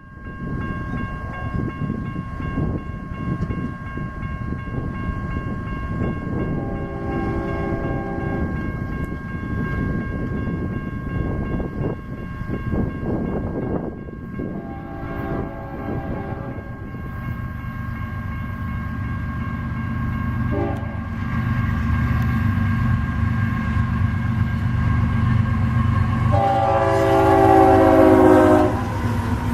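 Diesel freight locomotives approaching over a steady low rumble that grows louder, while the lead GE AC45CCTE sounds its horn in the grade-crossing pattern: long, long, short, then a long, loudest final blast.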